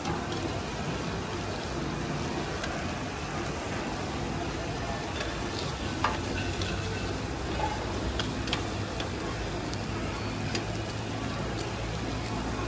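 Marinated chicken pieces sizzling steadily on a flat steel griddle as they are turned with metal tongs and a wooden spatula, with a few sharp clicks of the tongs against the metal.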